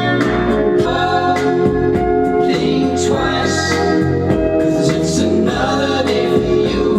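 Music with singing over sustained instrumental chords.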